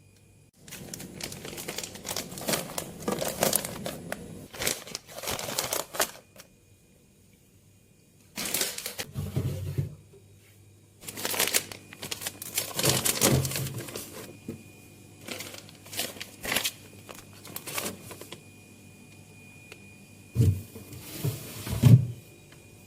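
Plastic bags and packaging crinkling and rustling in irregular bursts as things are handled, with a few dull knocks, twice close together near the end.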